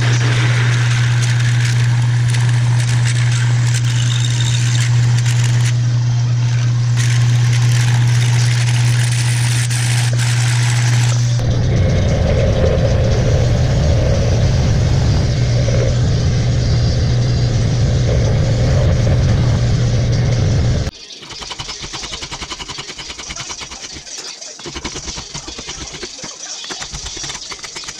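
Metal lathe running with a steady low hum while a twist drill in the tailstock chuck bores into a spinning metal bar; the sound roughens about halfway through the lathe work, then cuts off suddenly. After that, a hand file rasps in repeated strokes across a metal tube clamped in a vise.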